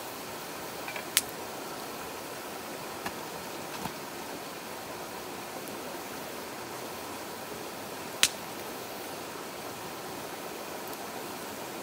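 Steady rush of a shallow rocky stream beside a burning wood fire, with a few sharp snaps. Two loud ones come about a second in and about eight seconds in.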